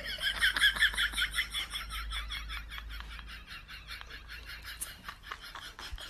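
A rapid run of high chirps, about six a second, fading out over several seconds.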